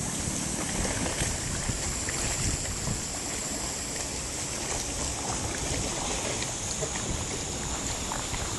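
Steady rush and splashing of water running at a water mill, with small scattered ticks through it.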